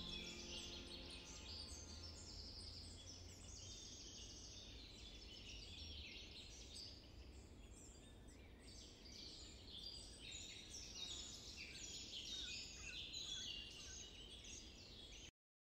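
Several small birds singing, a busy mix of short high chirps and trills, over a faint low rumble. The last notes of a music track fade out at the start, and the sound cuts off abruptly near the end.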